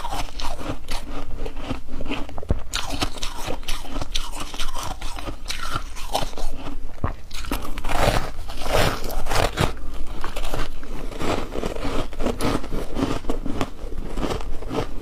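Chunks of ice being bitten and crunched between the teeth: a dense, continuous run of sharp cracks and crunches, heaviest a little past the middle.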